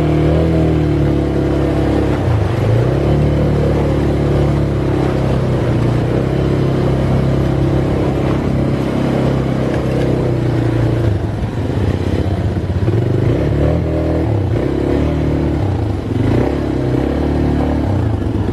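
ATV engine running while riding, its pitch rising and falling as the throttle changes, with brief dips a few times.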